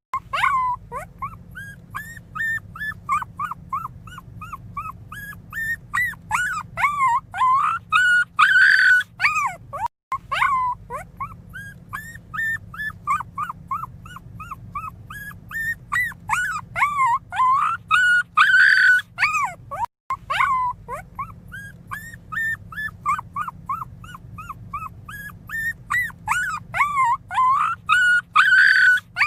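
Very young miniature pinscher puppy crying: a continual run of short, high-pitched whimpers and squeaks, several a second, with louder squealing cries about every ten seconds.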